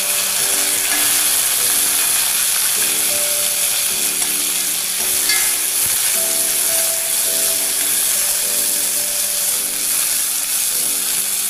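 Cut okra sizzling steadily as it fries in hot coconut oil tempered with mustard seeds, dried chillies and curry leaves, in an iron kadai, with a metal spoon stirring and scraping through it.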